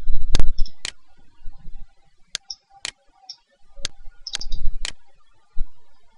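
Computer mouse button clicking about seven times at uneven intervals while a file is picked in an Open dialog. There is a low rumble under some of the clicks.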